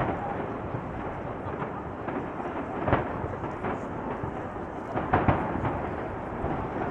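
Aerial fireworks shells bursting in quick succession: a continuous rolling rumble, with sharper booms about three seconds in and twice a little after five seconds.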